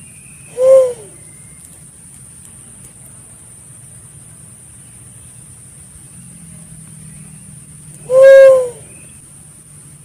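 Pink-headed fruit dove lure-call recording: two single hooting coos, a short one about half a second in and a longer one about eight seconds in, each rising slightly then falling in pitch.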